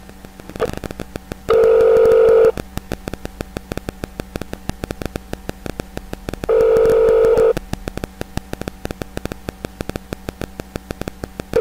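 Telephone ringback tone on an international call to Eritrea, heard over the phone line: a steady one-second tone, twice, about five seconds apart, meaning the called line is ringing. Faint rapid clicking runs on the line between the tones.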